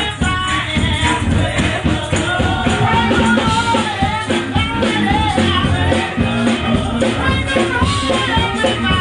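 Live church band of bass guitar, keyboard, organ and drums playing an upbeat song, with voices singing over it.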